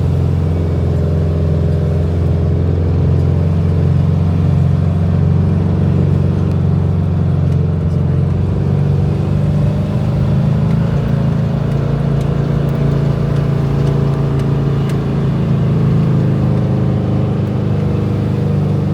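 A motor vehicle driving along, a steady low rumble of engine and road noise.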